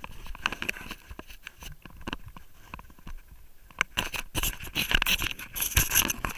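Handling noise on a camera housing: rapid clicks, rubbing and scraping as the camera is gripped and moved against wetsuit material. It is busy at first, thins out in the middle with one sharp click, then grows busy again from about four seconds in.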